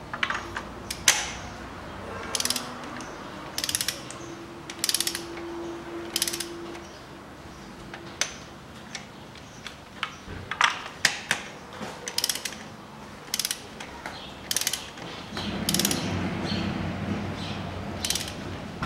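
Socket ratchet clicking in short runs as it is swung back and forth, tightening spark plugs into the cylinder head.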